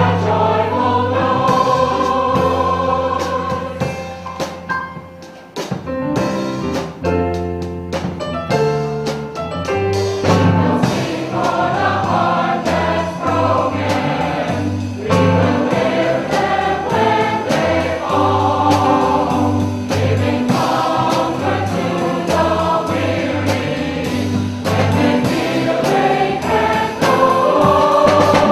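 Mixed chorus of men's and women's voices singing a choral song, with a brief softer passage about five seconds in.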